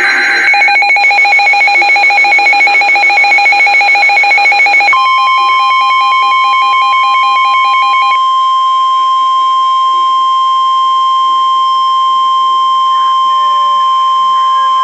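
Emergency alert tones: rapid pulsing electronic beeps from an alert receiver, then the steady single-pitch NOAA Weather Radio warning alarm tone, which starts about five seconds in. The beeps stop about three seconds after the steady tone begins. The alarm tone signals that a new weather warning is about to be broadcast.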